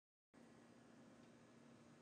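Near silence: dead silence, then a moment in, faint steady room tone with a low hum.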